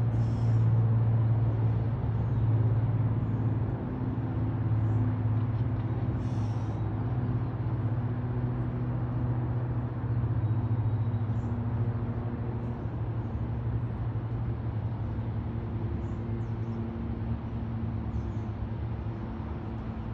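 Steady low hum of an idling engine, with a few short, faint high-pitched chirps scattered through it.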